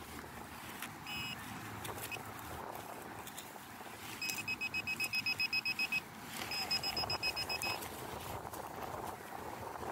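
Handheld metal-detecting pinpointer sounding as it is probed into the soil: one short beep about a second in, then a rapid run of high beeps, about seven a second, from about four seconds in for two seconds, a short gap, and another run of about a second. The fast beeping signals a metal target right at the probe tip.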